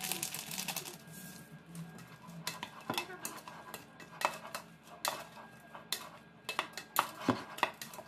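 A plastic packet rustling as its contents are poured into a stainless steel bowl, then a spoon scraping and clinking against the steel bowl as the pork salad is tossed, in irregular knocks that come thicker toward the end.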